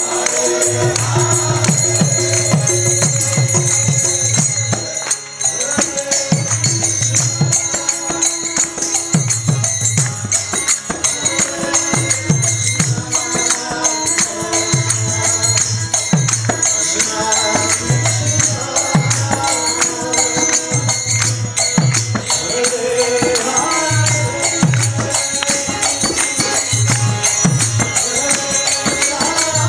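Kirtan music: a group chanting together over a steady rhythm of low hand-drum strokes and constant metallic jingling of hand cymbals.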